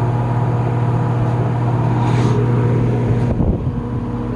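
Penney's Lakewood SPXC 20-inch box fan running on high speed: a steady motor hum under the rush of air. The owner hears some noise from it on high and thinks the bearings need work.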